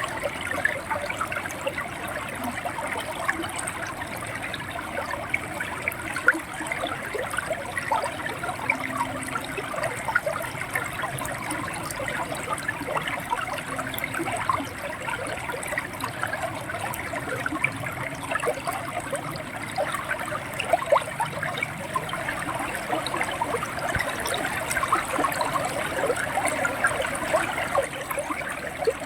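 River water running over rocks, gurgling and splashing steadily with many small quick splashes.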